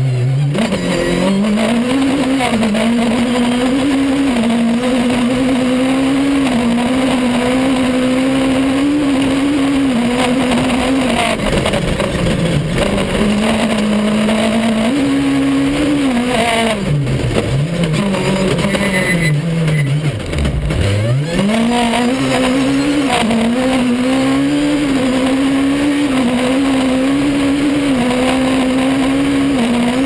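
Heard from inside the cabin, the Honda engine of a four-wheel-drive Fouquet rally car is run hard at high revs, held near the top with brief steps at gear changes. The revs drop a few times, falling very low about two thirds of the way through as it slows for a corner, then climb again, over steady road noise.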